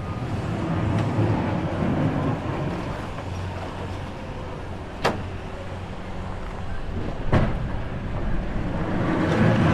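A vehicle engine runs steadily over outdoor street noise, with a sharp knock about five seconds in and another about seven seconds in.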